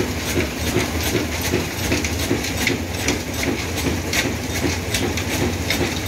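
Old single-cylinder Ruston diesel engine running at a steady pace, with an even knocking beat of about three strokes a second.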